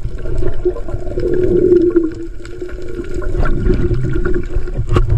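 Underwater sound picked up by a camera below the surface: a low water rumble with a steady droning hum that swells about a second in, and a few scattered clicks.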